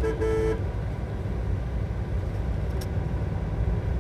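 Steady low rumble of a car driving along the road. A brief steady beep sounds in the first half second.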